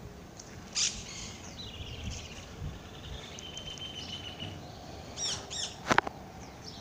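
Birds chirping and trilling over steady outdoor background noise, with a run of quick falling chirps about five seconds in. A sharp click comes about a second in, and a louder one near the end.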